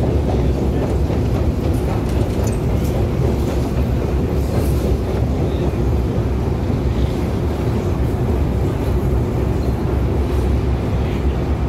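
Metro escalator running: a steady low rumble of the moving steps and drive, with scattered faint clicks.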